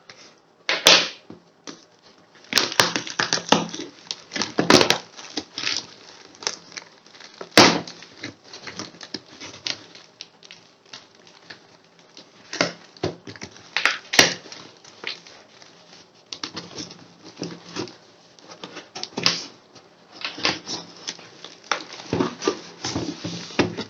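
Packaging being handled and opened: irregular crinkling and rustling with sharp clicks and snaps.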